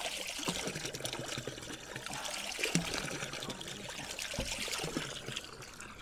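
Water running from a natural spring fountain's spout and splashing steadily, growing a little fainter near the end.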